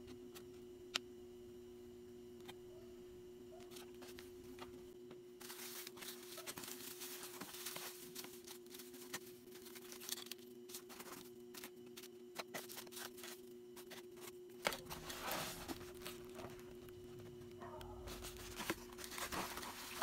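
Packaging being handled while packing orders: rustling, crinkling and tearing with many sharp clicks. It starts about five seconds in and picks up again near the end, over a steady low hum.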